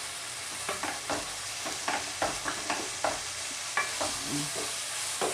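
Chicken pieces frying in a pan with a steady sizzle while being stirred, the utensil scraping and tapping against the pan in irregular strokes about two to three times a second.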